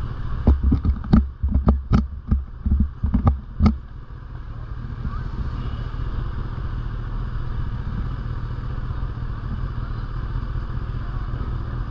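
Sport motorcycle engine idling with a steady low rumble while the bike stands still. In the first four seconds about ten sharp clicks and knocks sound over it, irregularly spaced.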